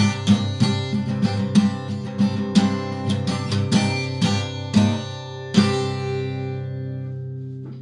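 Steel-string acoustic guitar strummed in a steady rhythm, then a final closing chord struck about five and a half seconds in that rings out and fades away.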